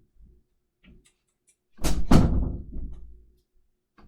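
A door shutting: two heavy knocks in quick succession about two seconds in, followed by a low rumble that fades out.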